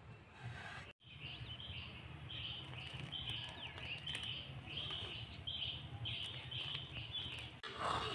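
A small bird chirping over and over, short calls about two a second, over a low steady rumble.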